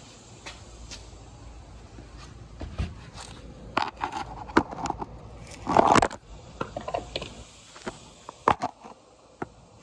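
Handling noise from a phone being moved about and set down on concrete: irregular clicks, knocks and scrapes, with a louder scraping rustle about six seconds in.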